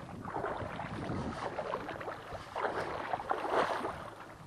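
Shallow water splashing and sloshing irregularly at the shoreline as a hooked carp is brought in close, loudest a little past the middle.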